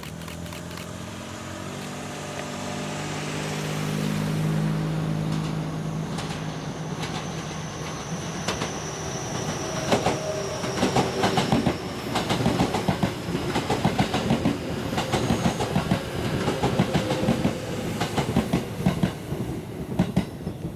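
Six-car Aichi Loop Railway 2000 series electric train approaching and passing. A steady hum swells as it nears, then a rapid clickety-clack of wheels over the rail joints runs as the cars go by.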